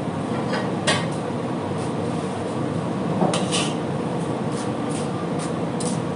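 Restaurant kitchen background: a steady hum with a few sharp clinks and knocks of dishes or utensils, about a second in, past the middle and near the end.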